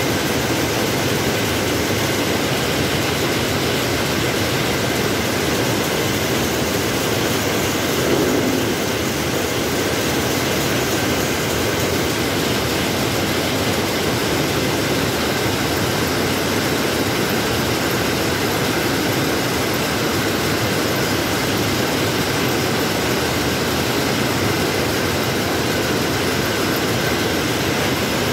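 Steady, loud clatter of rapier looms running in a weaving shed, an unbroken mechanical din.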